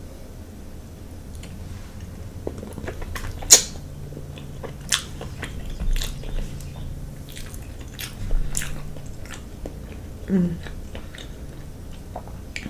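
A person chewing food close to the microphone, with sharp, wet lip smacks every second or two over a steady low hum, and a short hum of the voice near the end.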